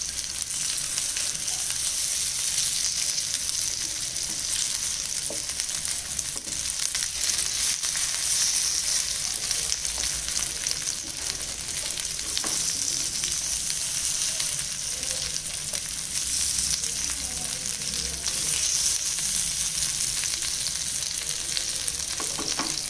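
Semolina-coated fish steaks shallow-frying in hot oil in a nonstick pan, a steady sizzle as the first side browns. A wooden spatula now and then scrapes and nudges the pieces, giving a few light taps.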